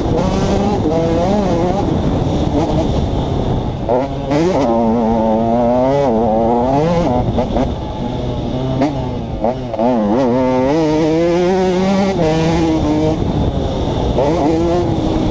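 2011 KTM 150 XC two-stroke single-cylinder dirt bike engine running loud, revving up in rising sweeps and dropping back again and again as the throttle is worked and the gears are shifted.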